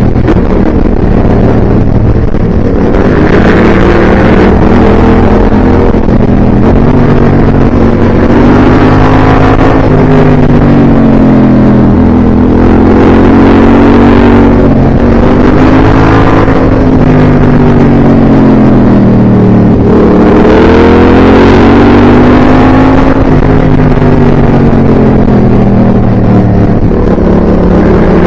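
A vehicle engine running loud and continuous, its pitch rising and falling slowly every few seconds as the revs change.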